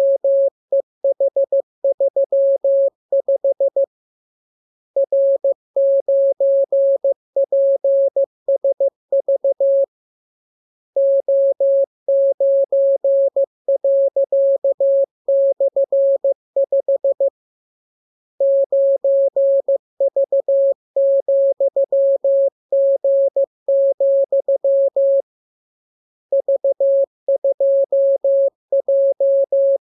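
Morse code (CW) practice signal: a single mid-pitched beep keyed on and off in dots and dashes at a steady speed. It is sent in runs of several seconds, with pauses of about a second between them.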